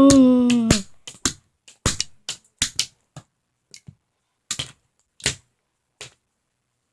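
A run of about a dozen short, sharp taps and clicks at an uneven pace over about five seconds, then they stop.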